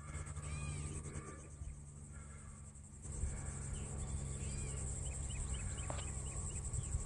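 Outdoor insects buzzing steadily in a high, rapidly pulsing drone, with short bird chirps now and then and a few quick chirps together near the middle, over a low steady background noise that gets louder about halfway through.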